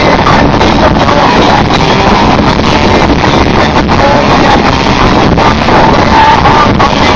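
Rock band playing live at full volume, with amplified guitars and drums. The recording is so overloaded that the music blurs into a dense, distorted roar.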